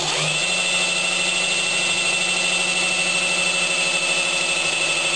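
Electric drill running steadily with a high whine, spinning a modified distributor shaft that drives the engine's oil pump to prime the rebuilt engine with oil before its first start.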